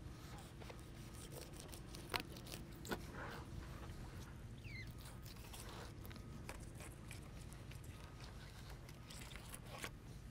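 A Bubba Blade fillet knife cutting into a red snapper on a cutting board: quiet scraping and crunching of the blade through scales and along the bone, with two sharp clicks about two and three seconds in, over a low steady rumble.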